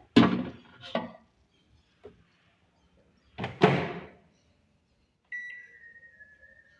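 Microwave oven sounds: a few sharp clunks, like its door being shut and latched, the loudest near the start and about three and a half seconds in, then a steady high tone from about five seconds in, sagging slightly in pitch.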